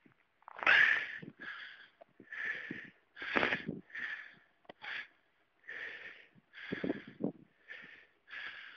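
A person breathing hard in short, quick breaths close to the microphone, about one breath every second.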